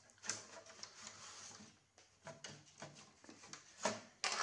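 A circuit board being pulled out of a DEC PDP-11/05 card cage: the board scrapes along its metal guides and its edge connector drags free of the backplane socket, with scattered clicks and two sharp knocks near the end.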